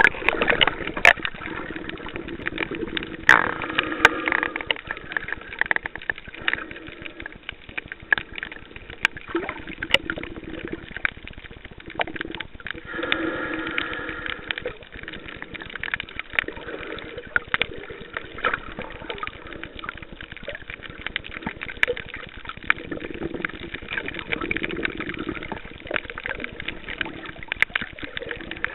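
Underwater sound picked up through a camcorder's waterproof case in shallow sea water: a muffled, steady wash of water with frequent sharp irregular clicks and crackles, and a few muffled swells now and then.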